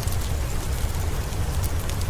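Steady rain with a deep low rumble, and a fireplace crackling on top with several sharp pops.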